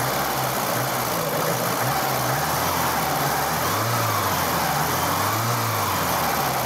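A high-mileage Lada Samara's four-cylinder engine idling, still barely warm, its pitch rising briefly twice in the second half as the throttle is blipped. The mechanic suspects the camshaft might be making a bit of noise.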